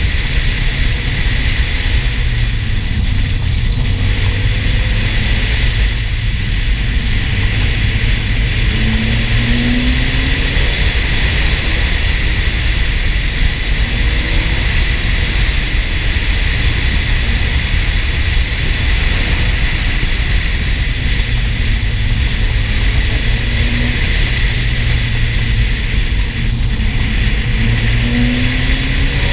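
Porsche 968's 3.0-litre four-cylinder engine under way, heard with heavy tyre and wind noise as a steady low drone, the engine pitch rising briefly a few times as it accelerates.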